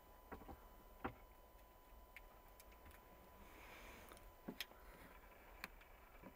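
Near silence: faint outdoor ambience with scattered small clicks and ticks, over a faint steady high tone.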